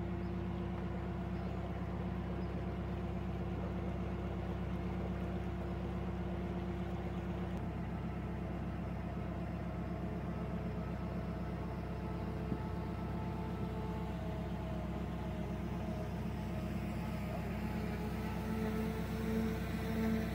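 Narrowboat's inboard engine running steadily while cruising, heard through the hull; its note changes about seven or eight seconds in, and a pulsing throb comes in near the end.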